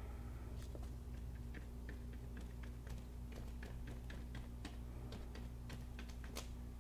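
Paintbrush dabbing against a canvas while laying on acrylic paint: light, sharp clicks about three a second, over a steady low electrical hum.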